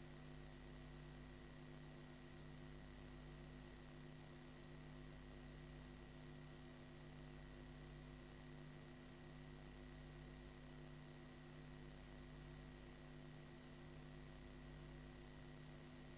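Near silence: a faint, steady electrical hum with hiss, the noise floor of a blank stretch of videotape playing back.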